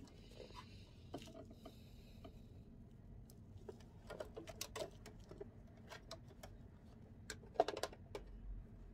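Light, scattered taps, clicks and rustles of hands hand-sewing a band onto a wig with needle and thread, with a soft hiss of thread drawn through early on and one sharper click about seven and a half seconds in.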